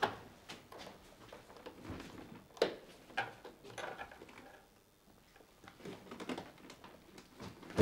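Door lock and handle of an apartment door being worked by hand: scattered clicks, rattles and knocks, with a sharper knock about two and a half seconds in.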